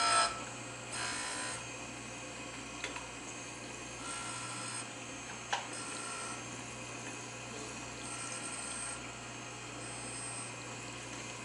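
Taft-Peirce surface grinder running with coolant flowing over a Bridgeport vise's steel jaws. Grinding of the wheel against the jaw is loudest at the very start and again briefly about a second in, then the machine runs with a steady hum, with a couple of sharp clicks.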